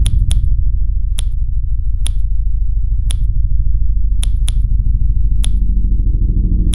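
Film soundtrack: a loud, steady deep bass drone overlaid with sharp, snap-like clicks about once a second, some coming in quick pairs.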